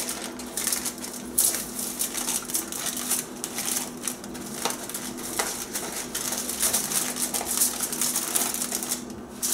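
Aluminium foil crinkling and crackling irregularly as hands wrap it around a rolled paper cone.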